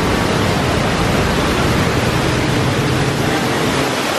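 Steady, loud rush of water from a theme-park ride's flash-flood effect pouring through the canyon set, with a deep rumble underneath that drops away near the end.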